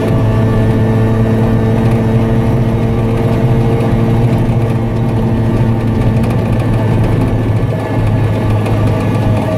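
Piaggio Ape 50 three-wheeler's small single-cylinder two-stroke engine running under way at a steady speed, heard from inside the cab. Its even droning note changes slightly about six seconds in.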